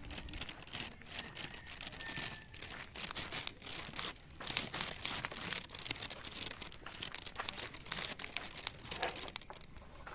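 Irregular crackling and rustling close to the microphone, in quick uneven spikes: handling noise from the phone being held and moved.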